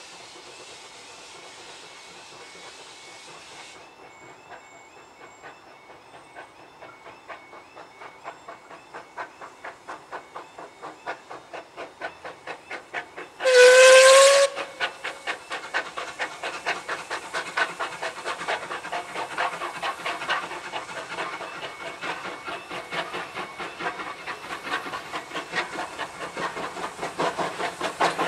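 Two Andrew Barclay 0-4-0 saddle tank steam locomotives working hard as they haul a loaded coal train away from the yard. A steady hiss comes first. Then the chuffing exhaust beats start and grow louder and quicker as the train gathers speed, with one short whistle blast about halfway through.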